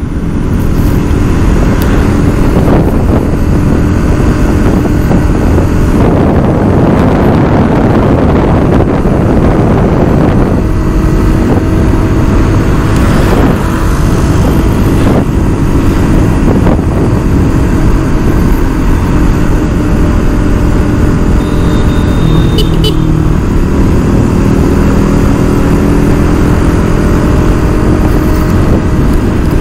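A vehicle travelling along a road: a loud, steady engine hum under heavy road and wind noise.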